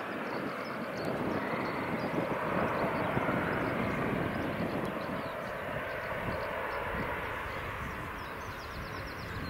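Airliner engine noise near the airport runway, a broad steady rush that slowly fades as the aircraft moves away. Faint bird chirps sound above it.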